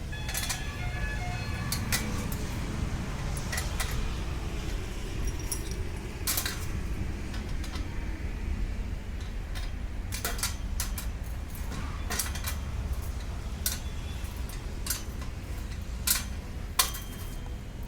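Scattered sharp metallic clicks and clinks, some in quick pairs, over a steady low rumble, the sound of tools and metal hardware being handled during electrical cable work.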